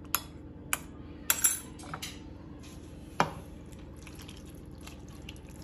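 A metal spoon clinks against a ceramic bowl of diluted tomato paste: several sharp clinks in the first three seconds, one louder knock just after three seconds. Then comes a faint, soft pouring as the sauce is tipped over stuffed aubergines in a pot.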